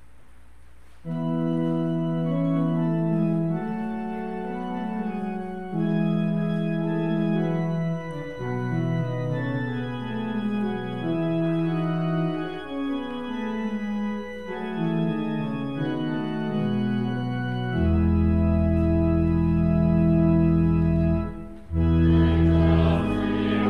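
Church organ playing a hymn introduction in held chords with moving inner parts, starting about a second in. A deep pedal bass joins for the last few seconds, with a brief break just before the final phrase.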